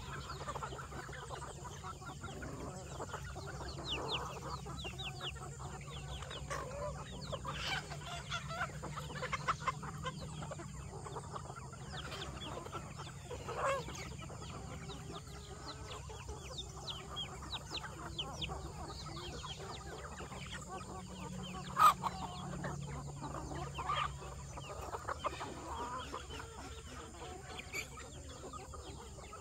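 Chickens clucking, a flock giving scattered short calls over a steady low hum. A single sharp click about three-quarters of the way through is the loudest sound.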